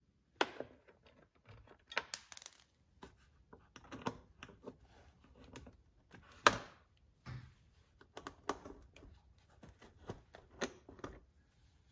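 Quiet, irregular small metallic clicks and clinks of a 4 mm Allen key working the bolts out of a motorcycle's lower fairing. The sharpest click comes about six and a half seconds in.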